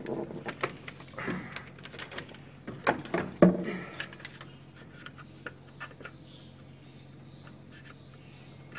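Hands working a plastic wiring-harness connector and wires around a tractor engine's ECM: scattered clicks and knocks of plastic and metal, the loudest about three and a half seconds in. After that comes faint high chirping of birds in the background.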